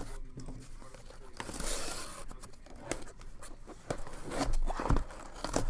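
Cardboard shipping case being handled and opened: scraping and rustling of cardboard with scattered knocks, several sharper ones toward the end.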